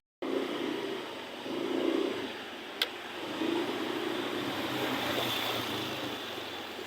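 Vehicle running on a road: steady engine and road noise with slow swells, and one short click near the middle.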